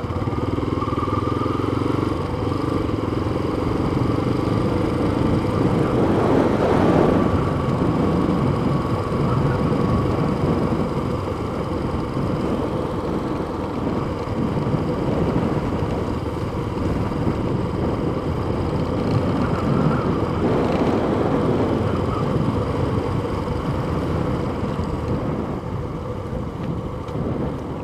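Yamaha FZ25 motorcycle's single-cylinder engine running steadily while riding at low street speed, with wind rumble on the microphone.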